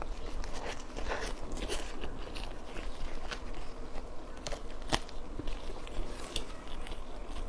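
Close-up eating sounds of a person biting and chewing a steamed bun (baozi), with irregular sharp mouth clicks throughout; the sharpest comes about five seconds in.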